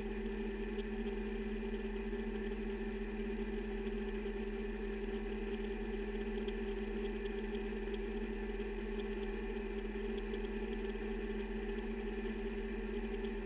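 Caterpillar D11R bulldozer's Cat 3508B V8 diesel engine idling with a steady, even drone that does not rise or fall.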